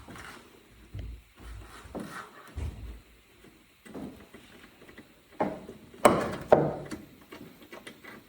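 Hand tools clinking and knocking against metal while the Torx bolts holding the rear brake caliper of a Coolster 125cc ATV are worked loose. Irregular knocks and rubbing, with a louder cluster of clanks about six seconds in.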